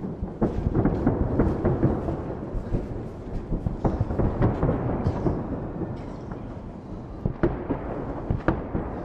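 Fireworks salute going off, a continuous rolling rumble of booms with sharp cracks; the bursts are thickest in the first two seconds, with two loud single cracks near the end.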